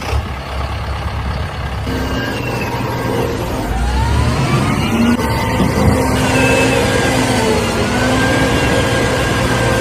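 Heavy-vehicle engine sound running steadily, with a gritty noise underneath and pitch that glides slowly up and down in places.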